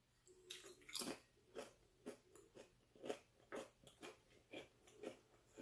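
Crisp potato chip topped with chunks of cheese being bitten and chewed: a sharp crunch about a second in, then a run of smaller crunches about two a second.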